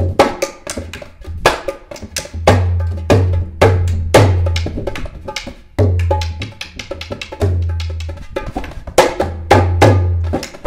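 Dholak, a two-headed Indian barrel drum, played by hand in a fast, continuous rhythm. Sharp slaps ring over deep booming notes from the bass head, some held for about a second.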